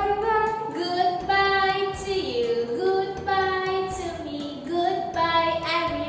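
A children's song: a high voice sings a melody in held, gliding notes over a backing track with a bass line.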